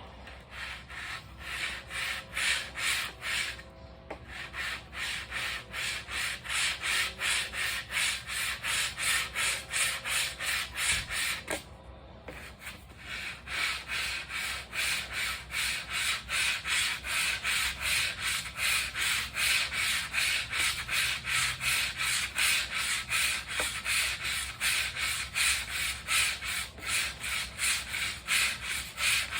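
Hand sanding a car spoiler, abrasive paper rubbed back and forth in even strokes at about three a second, with two brief pauses.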